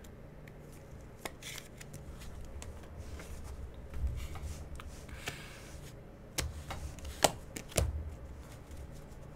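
Hands opening Panini Prizm basketball cello packs and flipping through the cards: soft plastic wrapper crinkling and light card snaps, with a few sharper taps between about six and eight seconds in.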